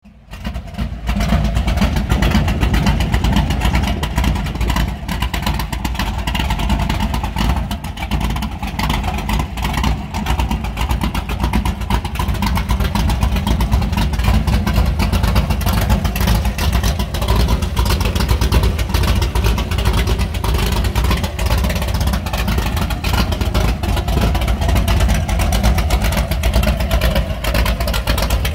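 406 cubic-inch small-block Chevy V8 idling steadily, a constant low rumble from its exhaust.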